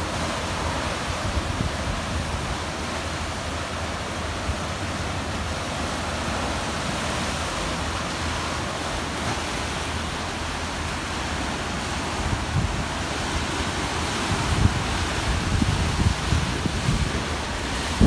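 Sea waves breaking and washing over rocks along the shore, a steady rush of surf. In the last few seconds, gusts of wind rumble on the microphone.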